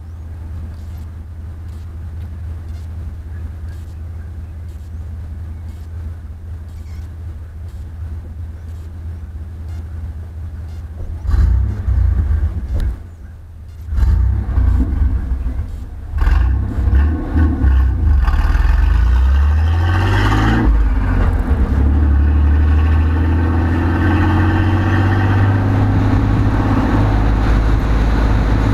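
GM Vortec engine and exhaust running: a steady low hum at first, then about a third of the way in it is revved hard in loud surges with a brief drop between. Past the middle it climbs in pitch under acceleration and settles into a loud, steady pull.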